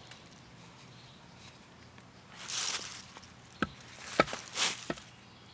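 An ECM blower motor being handled: a short rustle about halfway through, then three sharp clicks or knocks, with another rustle between them.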